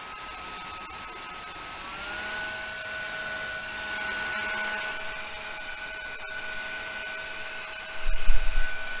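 Small brushless fan motor of a handheld bladeless fan running with a steady high whine over a rush of air. Its pitch steps up about two seconds in. Near the end there is a short, loud, low rumble.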